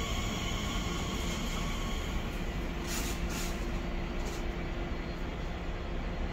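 A train running on the main line: a steady rumble with faint steady whining tones, and three brief high hisses about three to four and a half seconds in.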